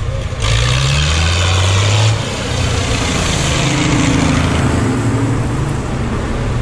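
Vintage tractor engine chugging as it drives through a shallow ford close by, its tyres throwing up splashing water. The splash hiss starts suddenly about half a second in and drops back about two seconds in, while the engine note rises a little and runs on.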